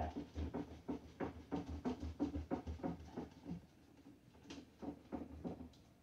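Irregular clicking and knocking of hands working at the plastic shelves and trim inside an open refrigerator, a quick run at first that grows sparser and quieter after about three and a half seconds.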